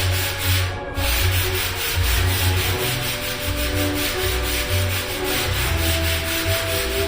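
Sandpaper being worked across a ceiling: a continuous scratchy sanding sound with a brief pause about a second in.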